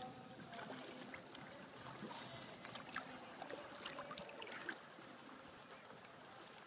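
Faint small splashes and drips of a wooden paddle dipping into calm, shallow water beside a paddleboard, with a few sharp ticks. It goes quieter after about five seconds.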